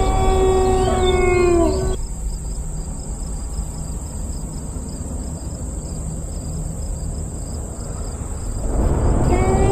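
An eerie, wavering wail with several pitched tones that slides down and stops about two seconds in. Low rumbling noise follows, then swells near the end as the wailing tones start again.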